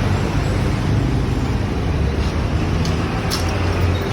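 Steady low rumbling background noise like road traffic, with a few faint clicks a little after two and three seconds in.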